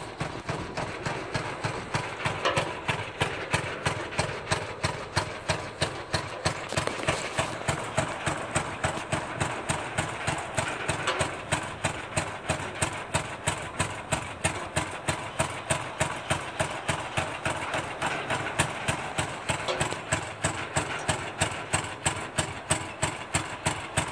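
Fairbanks-Morse 346 oilfield engine running steadily on a pumping unit, with an even beat of roughly two to three exhaust pops a second.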